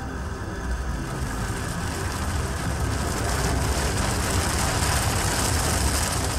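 Earthquake sound effect: a deep rumble with a rising roar of noise over it, growing louder from about two seconds in.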